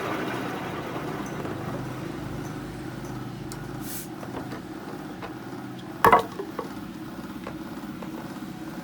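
A steady low mechanical rumble, slowly fading, with one sharp knock about six seconds in and a few fainter ticks.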